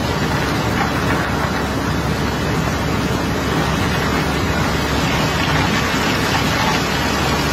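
Steady rushing noise of water pouring across the steel floor of a barge hold from a hose, washing down iron ore, over a steady low hum.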